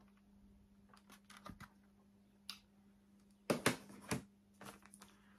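Plastic disc cases and packaging being handled and set down on a table: scattered light clicks, with a few sharper clacks about three and a half to four seconds in.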